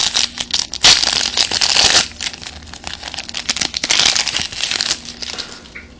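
Crinkling of a foil Yu-Gi-Oh booster-pack wrapper being handled, with small clicks and crackles, in bursts that are loudest about a second in.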